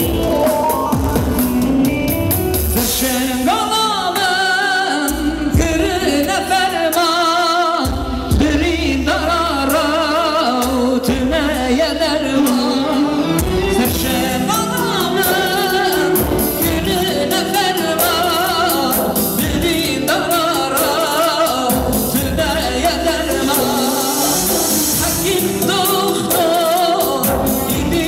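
Live Yezidi song: a male singer sings with vibrato into a microphone, amplified through PA speakers, backed by an electronic keyboard with a drum rhythm. The voice comes in a few seconds in, after a short keyboard passage.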